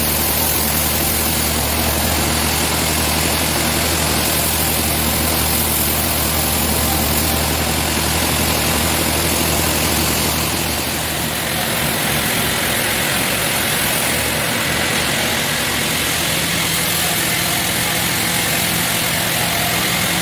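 Engine-driven sawmill machinery running steadily, its engine note shifting higher about halfway through.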